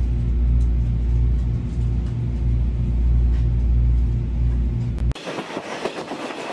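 Deep, steady diesel locomotive engine rumble with a low throb pulsing about three times a second, as a DE10-hauled coach train pulls slowly out of a station. About five seconds in it cuts off sharply to the quieter running noise of a passenger coach on the move: wheels on rail with a rush of air.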